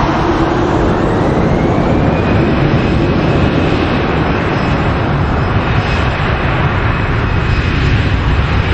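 Jet engines of an Airbus A320-family airliner spooling up on the runway for the takeoff roll: a loud, steady rumble with a whine that rises in pitch about a second and a half in, then holds.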